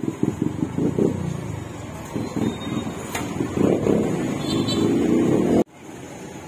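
Motorbike engines running close by in street traffic, a low pulsing engine sound that grows louder past halfway and cuts off abruptly near the end.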